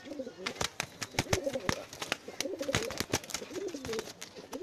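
Domestic homing pigeons cooing repeatedly, in low wavering phrases. Many sharp clicks and knocks come through the cooing.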